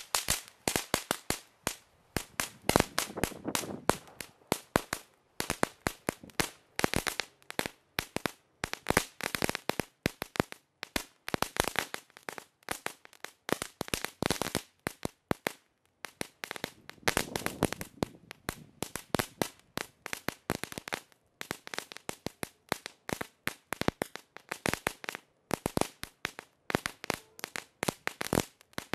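'Fury' ground firework going off in the grass: a long run of sharp pops and bangs, several a second, pausing briefly now and then.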